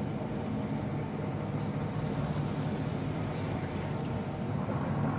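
Steady low rumble of background noise, with a few faint high ticks about three and a half seconds in.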